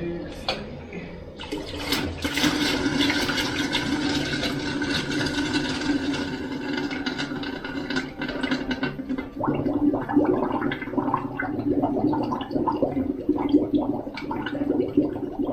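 Water rushing out of the purge line of a radiant floor heating loop as it is filled, starting about a second and a half in; from about nine seconds in the flow turns into an irregular sputter as air pockets are pushed out with the water.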